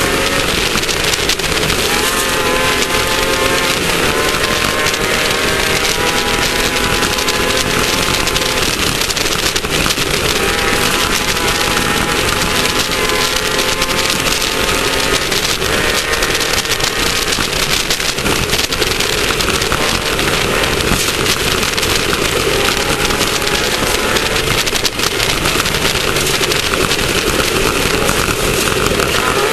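Class 1600 off-road race car's air-cooled VW 1600 engine running hard under racing load, its pitch climbing and falling repeatedly with throttle and gear changes, over a loud, steady rushing noise.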